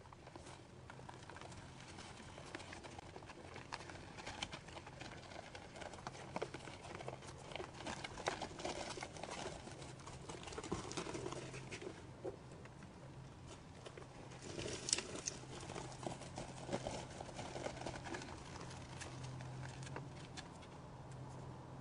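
White-tailed deer hooves crunching and pattering irregularly in snow as the deer walk around the feeding spot, over a steady low hum.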